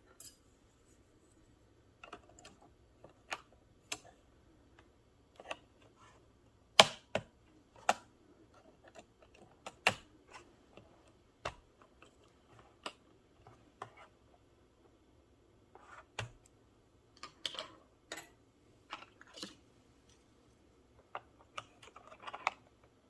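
Plastic keycaps on a Freewrite Alpha keyboard clicking and snapping as they are pulled off and pressed on: scattered, irregular sharp clicks with short pauses, the loudest about seven seconds in.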